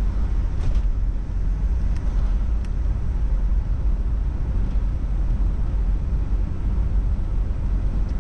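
A car driving, heard through an onboard camera: a steady, deep road and engine rumble, with a few faint clicks in the first few seconds.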